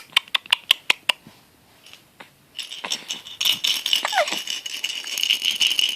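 A baby's rattle toy being shaken: a quick run of sharp clicks in the first second, then a continuous jingling rattle from about two and a half seconds in.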